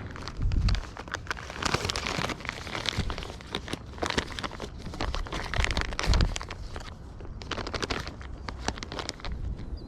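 Irregular crackling and rustling, with a dull thump about half a second in and another about six seconds in.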